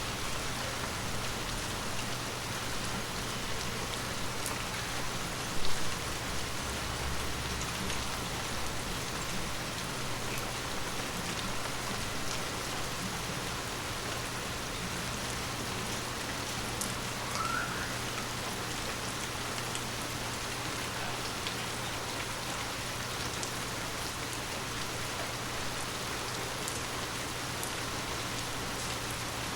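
Steady rain falling on forest leaves: an even hiss of drops with scattered individual pattering taps. One louder tap about six seconds in.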